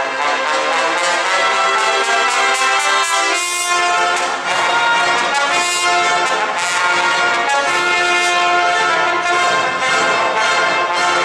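Solo trombone playing with symphony orchestra accompaniment, in a trombone concerto.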